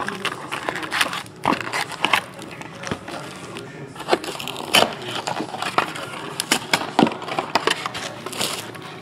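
Foil-wrapped trading card packs crinkling and tapping as they are pulled from a cardboard hobby box and stacked, with the cardboard box scraping as it is moved. Irregular crackles and light knocks, with no steady rhythm.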